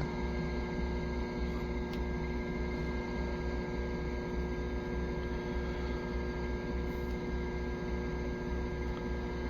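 Steady low hum with a few faint constant high tones, and one or two faint clicks.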